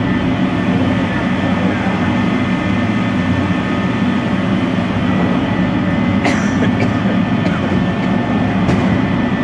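PVC sheet extrusion line running: a steady, loud machine drone with a thin high whine over it, and two sharp clicks in the second half.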